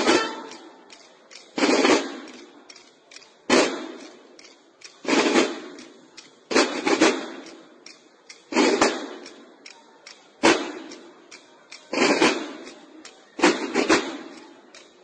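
Snare drums of a marching drum-and-bugle band playing loud unison accented hits, a single stroke or a quick pair about every one and three-quarter seconds, each fading quickly.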